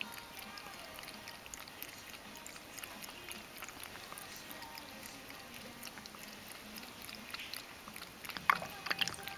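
Ragdoll cat lapping water from a bowl, its tongue making a run of small wet clicks, with a louder cluster of clicks near the end.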